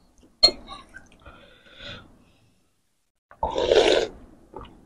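A loud slurp of bakso noodles and broth, lasting under a second, about three and a half seconds in.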